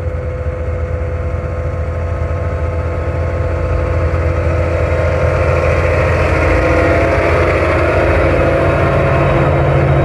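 John Deere tractor engine and a four-row potato harvester running as the machine digs toward and over the spot, a steady engine drone with the noise of the digging machinery, growing gradually louder as it approaches.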